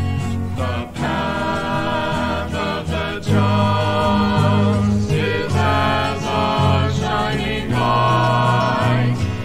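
Vocal group singing a 1971 gospel song in harmony over a band with a strong bass line.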